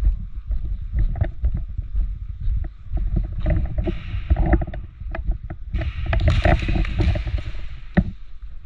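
Irregular low thumps and rustling with many short sharp clicks: gear and body-worn camera handling noise as an airsoft player moves about. A louder burst of rustling comes a little past the middle.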